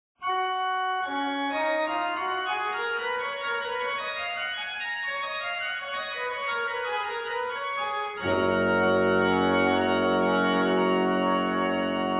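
Pipe organ playing Baroque music. It opens on held notes while a melody winds up and then back down. About eight seconds in, a louder full chord with deep pedal bass comes in and is held.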